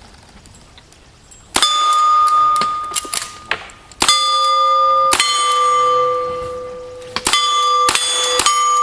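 A string of lever-action rifle shots at steel targets, starting about a second and a half in and irregularly spaced. Hits leave the steel plates ringing at a steady pitch between shots.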